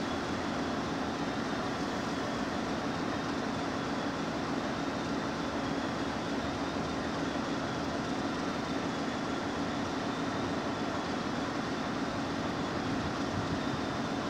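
Alco RSD-39 diesel locomotive idling at a standstill: a steady, even engine hum with a faint high whine above it.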